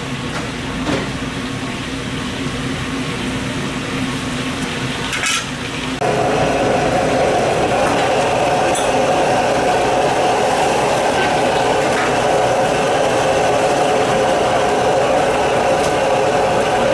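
Cooking in a kitchen: a steady mechanical hum, which steps up louder about six seconds in, with a few sharp clinks of utensils on cookware.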